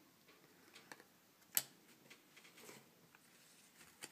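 A few faint clicks and taps from trading cards being handled and stacked, with one sharper click about one and a half seconds in.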